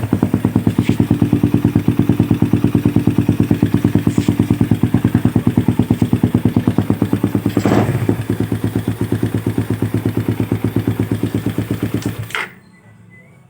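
Suzuki Raider 150 single-cylinder engine idling through an aftermarket Spyker exhaust pipe, a steady, even putter with no exhaust leak, according to the owner. A few sharp ticks come and go, and the engine is switched off about twelve seconds in.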